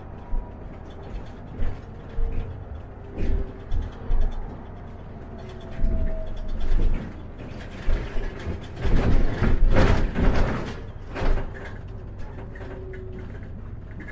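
City bus on the move, heard from on board: a steady engine and road rumble with repeated knocks and rattles from the bus body, which grow into a loud stretch of clattering about eight to eleven seconds in.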